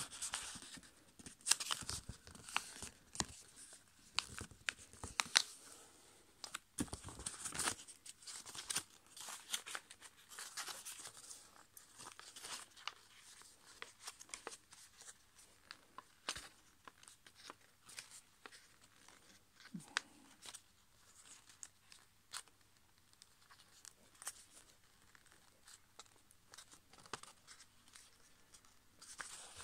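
Green A5 copy paper being folded and creased by hand into a paper airplane: irregular crinkling rustles and sharp creasing snaps. They are busiest in the first several seconds and sparser after that.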